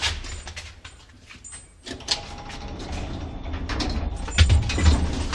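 Lift doors and their mechanism: a few sharp clicks, then from about two seconds in a steady low rumble with knocking and scuffing, loudest near the end.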